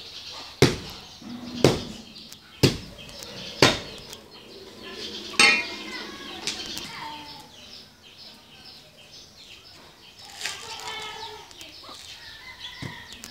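Machete chopping into a green coconut's husk: four sharp chops about a second apart, then one louder, ringing knock a couple of seconds later. After that come quieter handling sounds.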